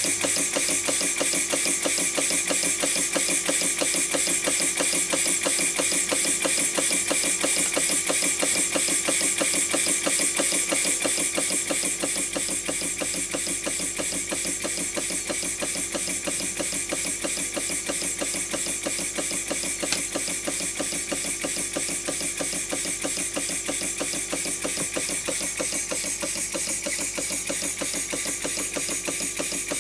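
Small brass overhead-crank model steam engine running on compressed air: a fast, even chuffing of exhaust puffs with a steady hiss of air over it. It gets a little quieter from about twelve seconds in.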